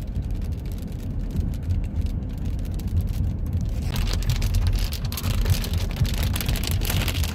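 Heavy rain: a steady low rumble, joined about four seconds in by a loud hiss of rain that keeps on.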